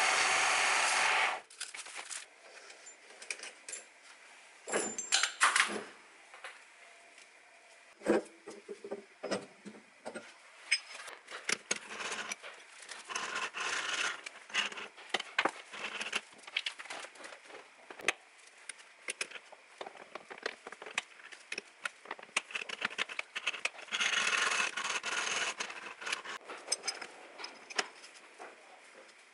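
Metal lathe running for about the first second and a half, then cutting off suddenly. After that come irregular metallic clicks, knocks and scrapes as the three-jaw chuck's jaws and a steel workpiece are handled and fitted in the chuck.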